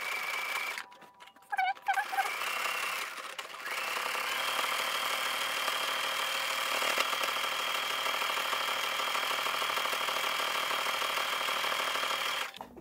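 Singer Quantum Stylist 9960 computerized sewing machine sewing an overlock stitch (straight and zigzag, presser foot C) along a pair of pants. It stops and starts a couple of times in the first few seconds, then runs steadily for about eight seconds and stops shortly before the end.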